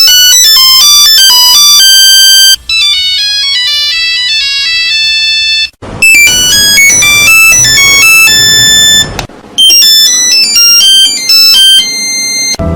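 Nokia mobile phone ringtones played one after another: four short melodic electronic ringtone clips, broken by brief gaps about two and a half, six and nine and a half seconds in. The third clip has a hiss under its notes.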